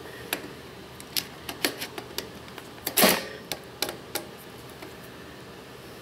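Sharp metal clicks and taps, about a dozen over the first four seconds with the loudest about three seconds in, as a screwdriver works the cable connector's locking ring into place on a well pump pressure switch.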